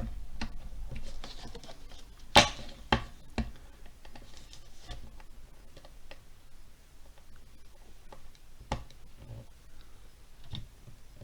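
Scattered light clicks and taps of small objects being handled on a work surface while solder and a soldering iron are picked up, with a sharper knock about two and a half seconds in.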